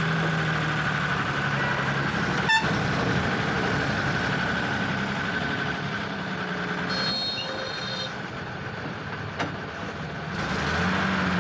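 Truck diesel engine idling steadily, with a single sharp knock about two and a half seconds in and a brief high-pitched tone around seven seconds in.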